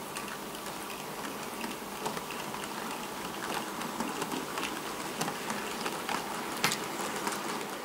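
TT-scale model train rolling past on the track: a steady rattle from the small wheels, with many light clicks and one sharper click about two-thirds of the way through.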